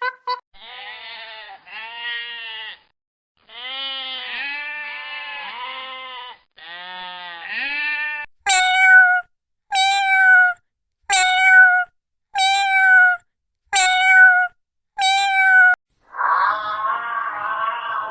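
Goat bleating in a run of wavering calls, then six short, identical calls about a second apart, and a rougher, harsher call near the end.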